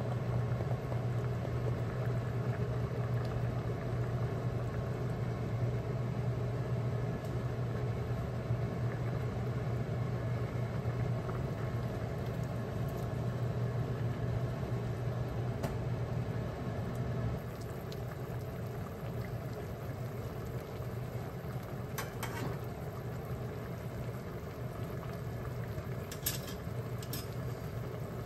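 Broth simmering and bubbling in a wok over a steady low hum. It gets somewhat quieter a little past halfway, as the heat is turned down to medium-low once it boils. A few sharp light clicks come near the end.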